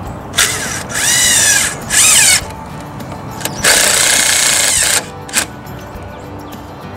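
Cordless drill driving screws through a metal strip into the wall in several short bursts, the motor speeding up and slowing with each screw, the longest run about a second and a half.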